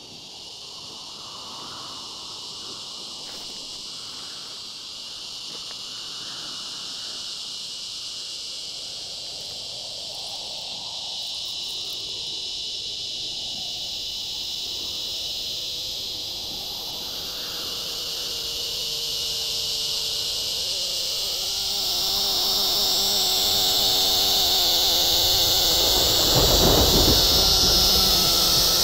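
Insects buzzing in a dense, steady high-pitched chorus that grows gradually louder, with a deep swell rising under it near the end.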